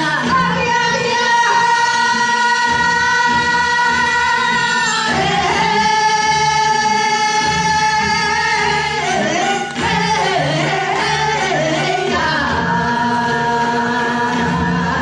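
Live singing with music: a voice holds long, steady notes of several seconds each, changing pitch about five seconds in and again near the end.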